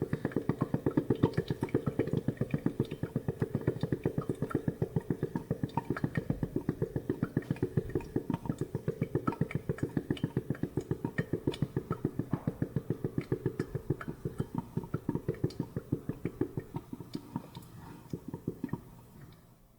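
Coffee-making sound effect: a fast, even train of soft knocks, about eight a second, that slowly fades and stops near the end.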